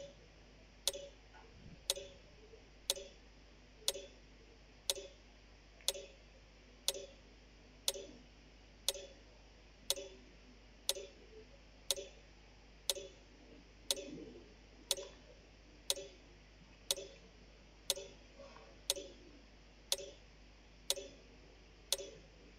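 Clock-like ticking, one sharp tick every second, as a timer counts off the seconds of answer time.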